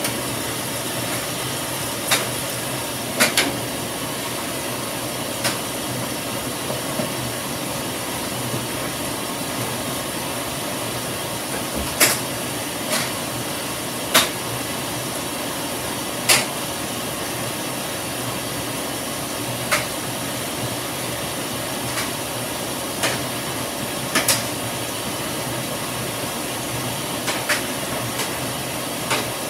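Top-loading washing machine filling with water: a steady hiss of water running into the tub, with a dozen or so sharp ticks at irregular intervals.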